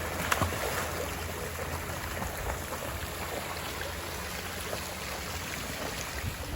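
Steady wash of sea water on a beach, with a few faint clicks.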